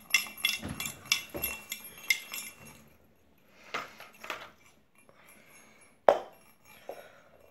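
Plastic egg-shaped wobble toy for cats rolling and rocking on a hard floor, whatever is loose inside it clinking and rattling in a quick run of small clicks that dies away about three seconds in. A few softer rattles follow, and a single sharp knock comes about six seconds in.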